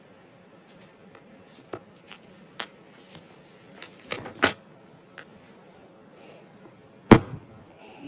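A paper book page being turned and handled: light rustles and taps, a louder rustle about four seconds in, and a sharp knock about seven seconds in.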